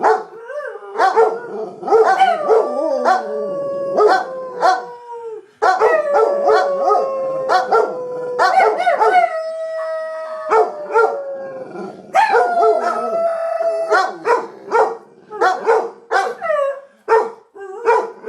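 Several dogs, among them a bull mastiff, howling together in long, slowly falling howls, with short barks in between. About fourteen seconds in the howls stop and only short barks and yips go on, about two a second.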